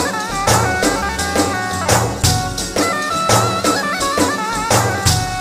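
Folk-style dance music from an arranger-keyboard sound set: a drum and tambourine beat about twice a second under a lead melody ornamented with quick trills.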